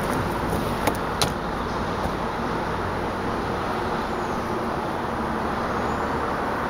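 Steady outdoor background noise with two sharp clicks about a second in.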